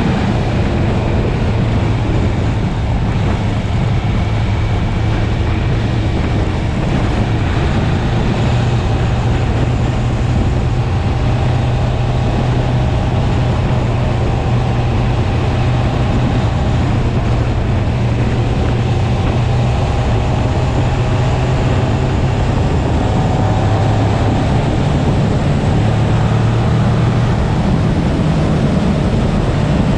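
650cc sportbike engine running steadily at road speed, heard through heavy wind noise on the microphone.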